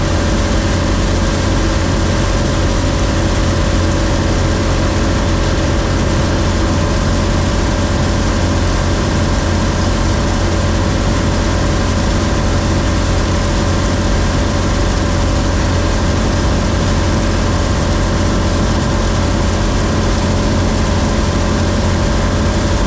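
John Deere 3300 combine running steadily while harvesting corn: a loud, even engine drone with constant machinery tones over it.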